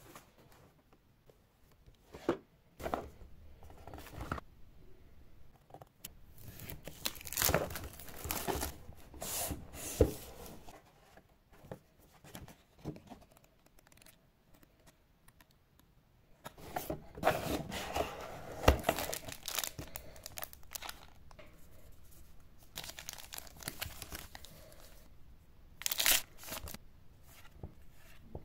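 Plastic wrap and packaging tearing and crinkling as a Pokémon card Elite Trainer Box is unwrapped. The sound comes in several irregular bursts with quieter handling between them, and there are a few sharp crackles.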